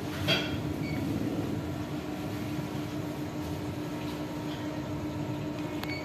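A steady mechanical hum with a low rumble underneath, and a sharp tap with a brief rustle about a third of a second in.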